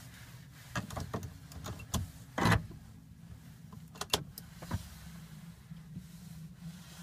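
Car flip key being handled, pushed into the ignition and turned to switch on the ignition with the engine off: a string of short clicks and knocks, the loudest about two and a half seconds in, over a low steady hum.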